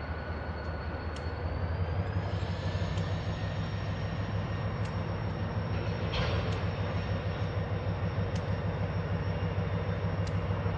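Diesel locomotive engine running with a steady low drone. About a second in, a thin high whine rises in pitch and then holds as the sound grows slightly louder. Faint scattered clicks are heard.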